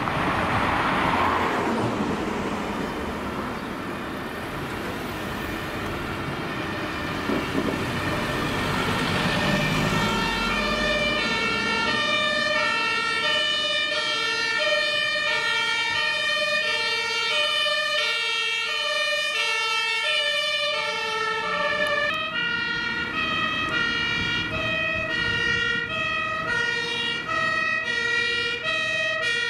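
Road noise from a passing car, then from about ten seconds in a fire engine's German two-tone siren (Martinshorn) sounding as the engine approaches, its high and low tones alternating evenly.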